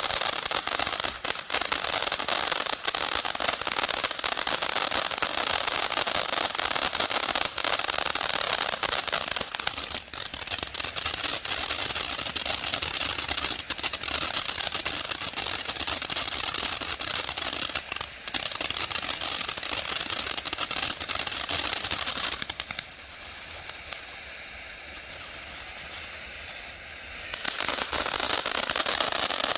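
Fireworks going off in a dense, rapid crackle of many small reports, like a machine gun. About 23 seconds in it drops to a quieter lull for about five seconds, then the rapid popping resumes.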